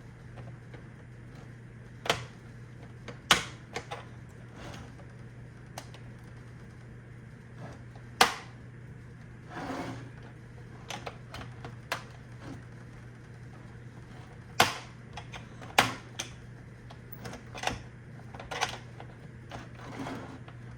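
Irregular plastic clicks and clacks of Roomba 690 parts being handled and pried apart by hand, with a few sharper knocks standing out, over a steady low hum.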